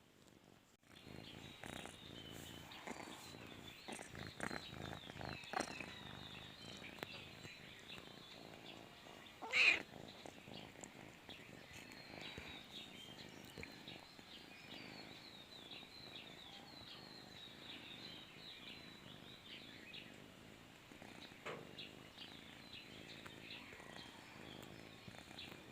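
Domestic cat purring steadily, with one short, louder cry about ten seconds in.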